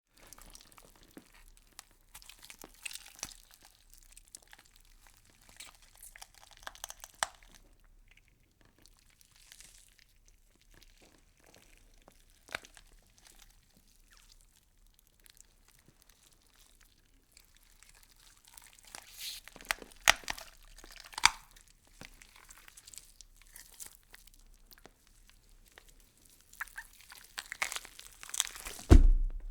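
Wet meat being twisted: sharp crackles and clicks in three clusters, with quieter gaps between them and a loud low thump near the end.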